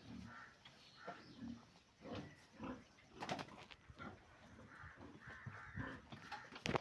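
Pigs grunting in short, scattered calls, with a sharp knock near the end.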